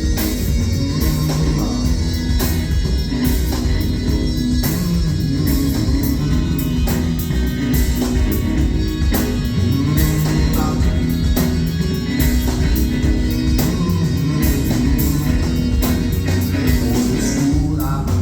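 Live rock band playing an instrumental passage with a steady beat and a moving low bass line.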